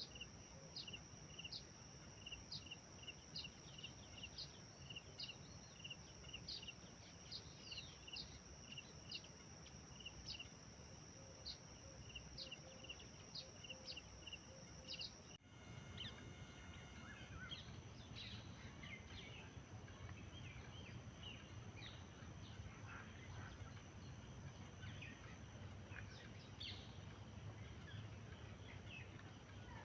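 Birds chirping: for the first half a short call repeated about twice a second over a steady high-pitched whine, then about halfway through an abrupt change to a busier mix of varied bird chirps.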